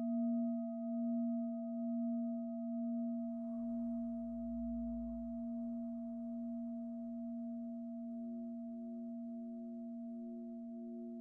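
A sustained drone of steady pure tones, a low one and a higher one, pulsing slowly and fading gradually. A fainter, softly pulsing tone joins in the last few seconds.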